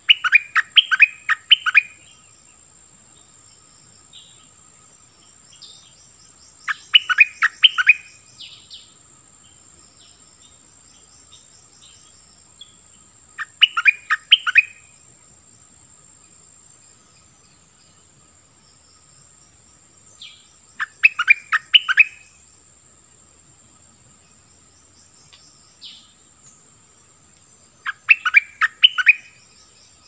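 A caged decoy bulbul (นกดอกแตง) singing five short phrases of quick notes, one about every seven seconds, over a faint steady high insect whine.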